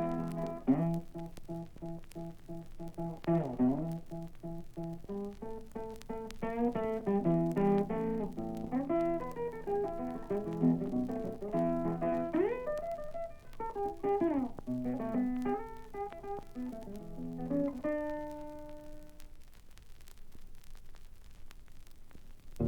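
Blues guitar instrumental break: picked single-string lines with bent notes over a low bass pattern. About eighteen seconds in, a last chord rings out and fades, leaving a quiet stretch near the end.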